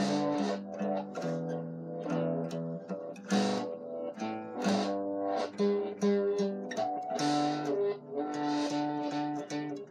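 Acoustic guitar played solo: a continuous run of picked notes and chords, with no singing.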